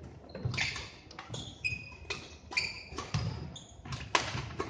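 Badminton rally on a wooden sports-hall floor: sharp racket-on-shuttlecock hits and footfalls, with several short high squeaks of court shoes on the floor.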